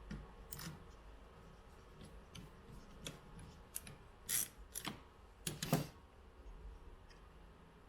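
Scattered small clicks and taps of parts being handled while a soundbar is reassembled, several in quick succession about halfway through.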